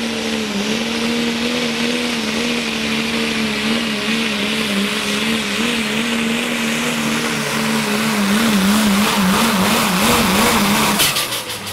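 Pro Stock diesel 4x4 pulling truck's engine running hard at high rpm, its pitch wavering increasingly, then cutting off abruptly near the end.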